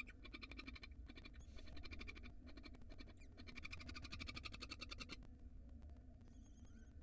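Barn owls in the nest box giving faint chittering calls: three bursts of rapid ticking notes, the longest about a second and a half, then a short wavering squeak near the end.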